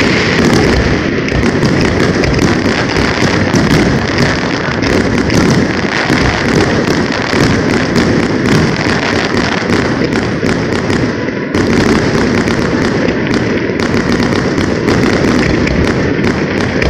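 Fireworks display: a dense, continuous barrage of bangs and crackling pops as shells burst one after another. It eases briefly about eleven seconds in, then picks up again.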